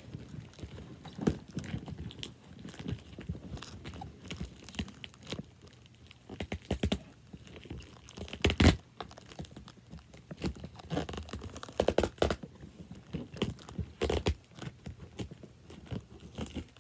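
Hands working at a sealed cardboard box to get it open: irregular clicks, taps and rustling handling noise, with the sharpest knock a little past halfway.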